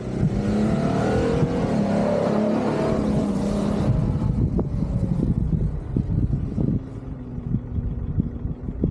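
An off-road vehicle's engine revving hard under load. The revs ease off about four seconds in, and a steadier, lower engine note settles in near the end.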